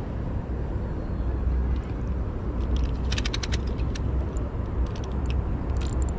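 Spinning fishing reel being handled close up: a quick run of sharp clicks about three seconds in, then scattered single clicks, over a steady low rumble.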